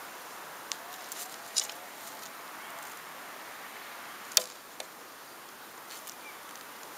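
Wooden arrows clicking and knocking as one is pulled from a back quiver and nocked on a Falco Storm traditional bow. There are a few light clicks early, then one sharper knock past the middle, followed by a softer one.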